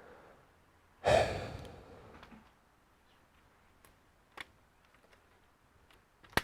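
A loud, frustrated sigh about a second in, fading away over a second or so, then a few light clicks.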